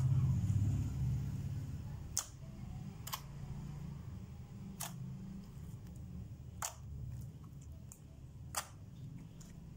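Thick slime being pressed and kneaded by hand, giving about six sharp clicks, one every second or two, as air pockets pop. A low steady hum runs underneath.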